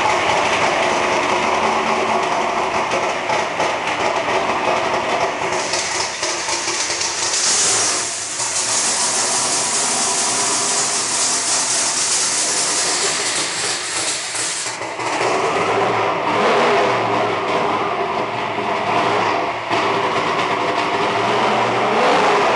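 Twin-turbocharged 632 cubic-inch big-block V8 running on an engine stand and being revved up and down. A strong hiss sits over the engine through the middle, from about six to fifteen seconds in.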